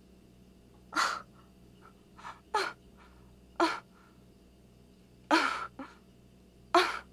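A woman gasping for breath in short, sharp gasps, five of them spaced a second or two apart, the loudest near the end.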